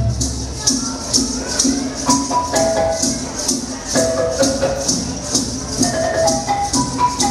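Music for a Dayak dance: a melody of held pitched notes over a low drone, with a regular shaker-like beat about twice a second.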